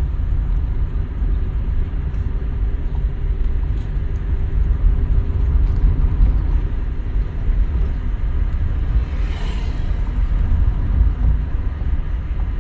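A vehicle on the move: steady low road and engine rumble, with a brief hiss that swells and fades about nine seconds in.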